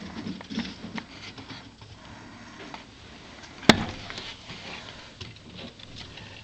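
Bulldogs romping in a yard: scattered scuffs, patters and light knocks, with one sharp knock about three and a half seconds in.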